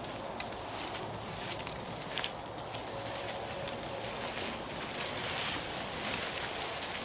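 Dead branches rustling and scraping through leafy undergrowth as they are pulled free and dragged, with a few sharp snaps of dry twigs breaking in the first couple of seconds.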